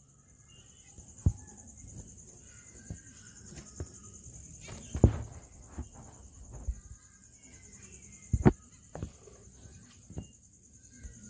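A steady high cricket-like trill in the background, with scattered soft, short chirps from caged Gouldian finches. Several sharp knocks cut through, the loudest about five seconds in and a double one about eight and a half seconds in.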